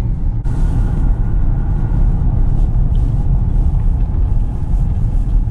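Car driving slowly, heard from inside the cabin: a steady low rumble of engine and tyres, with a higher hiss setting in about half a second in.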